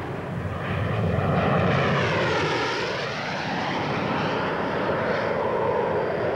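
Hawker Hunter jet fighter's single Rolls-Royce Avon turbojet flying past in a steady rushing jet roar. Its tone sweeps down around the middle and rises again as the aircraft passes.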